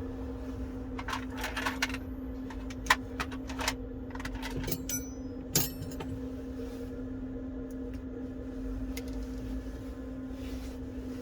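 Short sharp clicks and taps of a pry tool working a small circuit board loose inside a smartphone, bunched in the first half, over a steady low hum.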